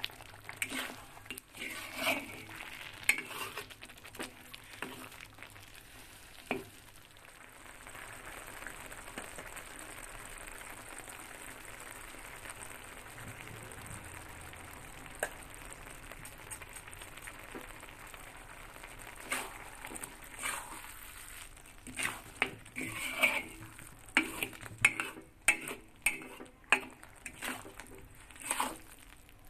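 Metal ladle scraping and knocking against a wok as thick pork rendang is stirred and fried. A steady sizzle of the frying curry fills the middle stretch, and the scraping strokes come thick and fast again through the last third.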